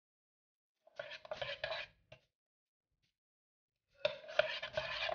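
A metal spoon stirring thick pearl millet batter in a metal saucepan, clicking and scraping against the pan's sides. It comes in two bouts, about a second in and again near the end.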